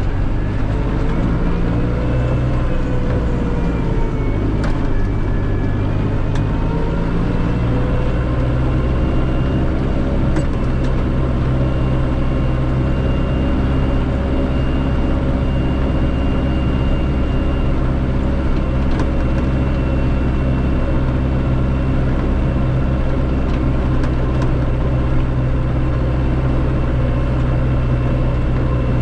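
Massey Ferguson 5445 tractor's 4.4-litre Perkins common-rail four-cylinder diesel running under steady load while snow ploughing, its engine speed wavering for the first several seconds and then holding steady.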